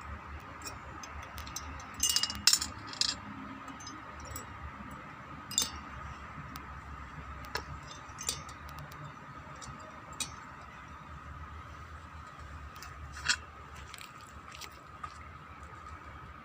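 Scattered sharp metallic clinks and taps of tools and small brush cutter engine parts being handled during disassembly, a quick cluster about two seconds in and single ones later, over a faint steady tone.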